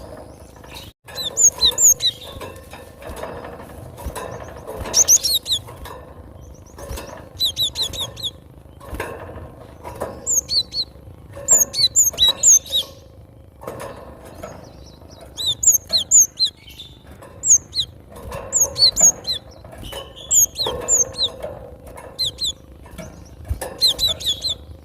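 Cinereous tit (gelatik batu) singing in quick bursts of short, sharp, high chirps, each burst a few notes long with brief pauses between, over a faint steady background noise.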